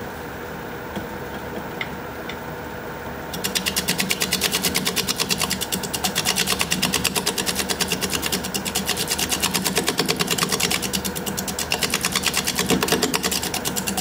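Wood lathe running, then from about three seconds in a bowl gouge cutting the spinning juniper with a rapid, even chatter of ticks: an interrupted cut, because the rim is not flat and the tool hits the high side with every turn and misses the low side.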